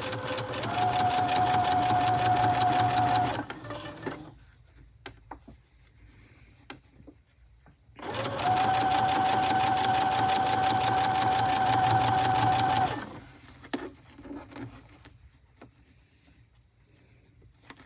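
Electric sewing machine with a walking foot stitching zipper tape in two runs of a few seconds each, its motor whine climbing to speed at the start of each run over a rapid, even needle clatter. Between the runs, a pause with small clicks of handling.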